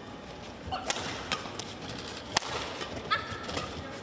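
Badminton rally: sharp racket strikes on the shuttlecock every half second or so, the loudest about two-thirds of the way through, with short squeaks of players' shoes on the court mat.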